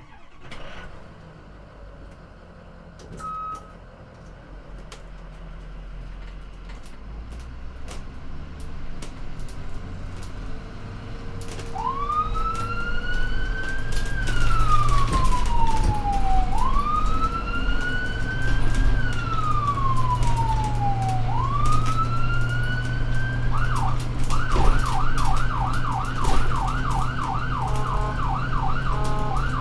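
An ambulance driving with its engine running, then its siren coming on about twelve seconds in. The siren goes through three slow wails, each rising quickly and falling slowly, then switches near the end to a fast yelp of about four or five cycles a second.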